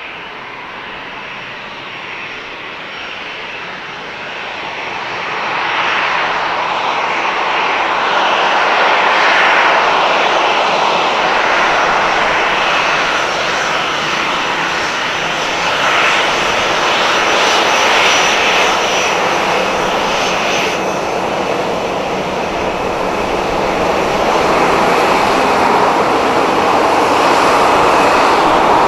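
Boeing 737-700's CFM56 jet engines running at taxi power as the airliner taxis close by: a steady jet rush with a faint high whine, growing louder about five seconds in and then holding.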